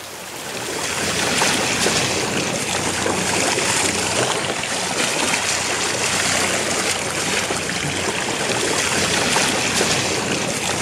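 Sea water rushing and splashing along the hull of a sailboat under way, a steady noise that swells up within the first second and then holds.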